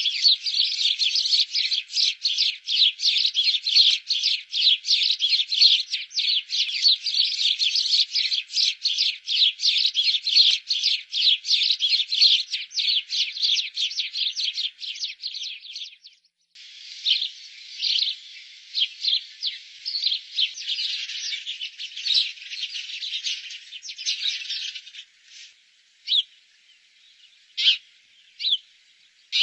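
Sparrows chirping rapidly and without pause, then after a short break about halfway through, sparser chirps, thinning to a few single calls near the end.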